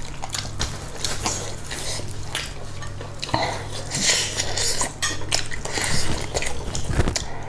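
Clinks, taps and scrapes of cutlery and dishes while food is handled and eaten, with brief rustles in between, over a low steady electrical hum.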